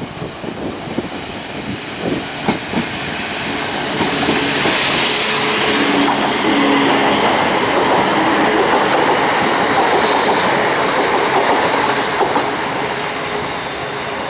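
Electric multiple unit passing close along the platform. The wheels click over the rail joints as it comes in, then there is a loud, even rush of running noise as the carriages go by, easing off near the end.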